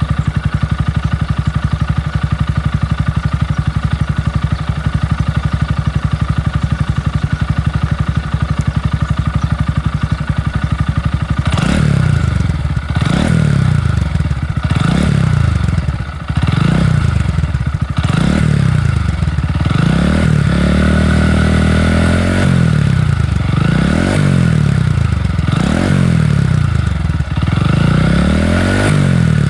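Honda Grom (2021-on) 125 cc single-cylinder engine breathing through a BEAMS R-EVO heat-titanium full exhaust. It idles steadily for about eleven seconds, then is revved in a run of short throttle blips, one after another, with one longer hold at raised revs partway through the blipping.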